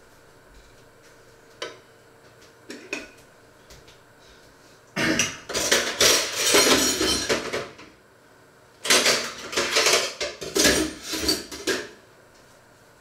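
Dishes and metal cutlery clattering in two bouts of a few seconds each, the first starting about five seconds in, after a couple of light knocks.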